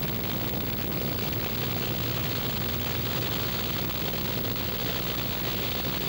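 Steady drone of a Cessna's single piston engine and propeller in flight, heard from inside the cabin.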